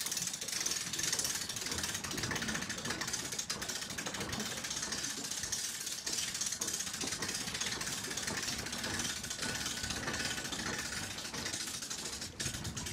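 Hand-cranked boat trailer winch ratcheting as it hauls a boat up onto the trailer: a fast, steady run of pawl clicks.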